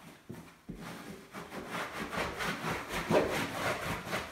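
A cloth rag scrubbed hard back and forth against a wall panel smeared with construction adhesive, a run of quick rubbing strokes starting about a second in.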